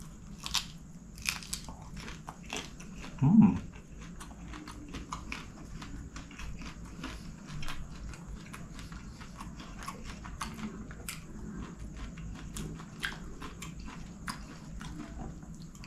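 Close-miked chewing of a mouthful of nasi goreng eaten by hand: many small, wet mouth clicks and smacks. A short hum about three seconds in.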